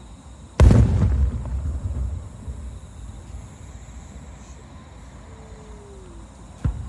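Aerial firework shells bursting: one loud boom about half a second in, echoing and dying away over about two seconds, then a second, shorter bang near the end.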